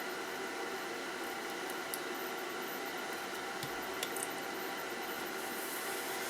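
Steady background hiss and hum with a few faint, short clicks, about two, three and a half and four seconds in.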